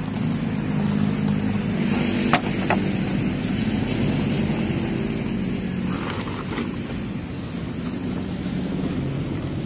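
Steady low engine drone, with two sharp clicks a little over two seconds in.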